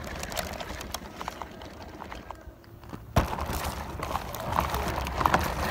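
Remote-control monster truck driving over rough, dry dirt, heard from a phone strapped to it: a rattling, clicking rumble that gets louder about three seconds in.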